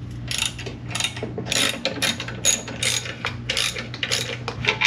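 Hand ratchet wrench clicking in quick, uneven runs as it backs out the stock exhaust muffler's mounting bolts on a Honda Navi.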